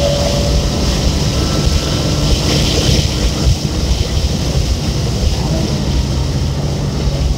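2004 BMW 330i ZHP's 3.0-litre straight-six at high revs under full throttle in fourth gear, heard from inside the cabin with heavy wind and road noise, then eased off as the car brakes in the second half.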